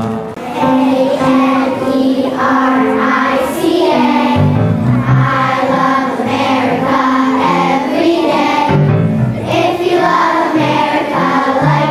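A choir of young children singing with a musical accompaniment.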